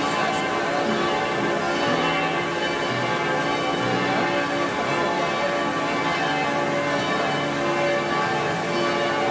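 Bells ringing in a continuous peal, many overlapping tones sounding and dying away one after another.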